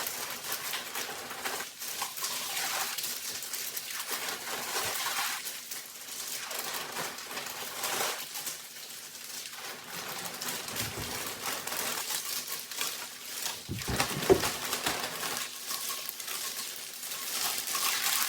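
Rustling and scraping of potting soil and a plant pot being handled while a plant is set into its new pot, with one sharp knock about 14 seconds in.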